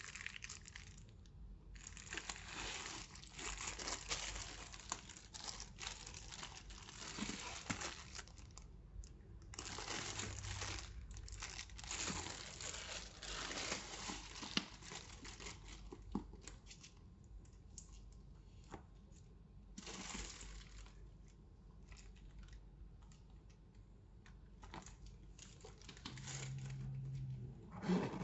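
Wrapping around a new handbag being crinkled and pulled apart by hand: spells of rustling and crackling, with quieter pauses between and a few light clicks.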